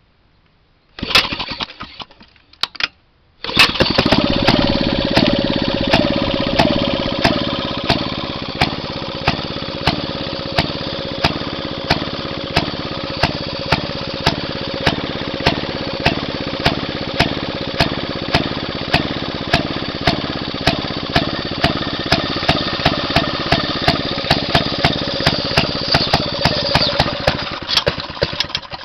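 A Maytag two-stroke engine on a walk-behind garden tractor being kick-started: a short burst of firing that dies, another brief try, then it catches and runs steadily with a sharp click about twice a second over it. The engine cuts out suddenly at the very end.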